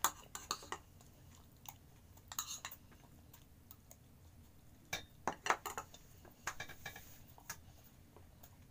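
A metal spoon clinking and scraping against ceramic bowls as food is scooped, in scattered clusters of sharp clinks, the busiest about five seconds in.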